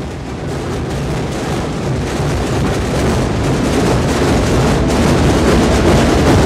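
Massed drums, snare drums and bass drums, beating together in a dense, continuous roll of overlapping strokes, growing steadily louder.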